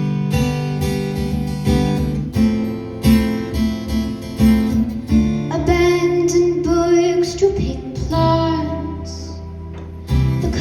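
Live acoustic guitar strumming the introduction of a song, with a woman's voice coming in singing about halfway through.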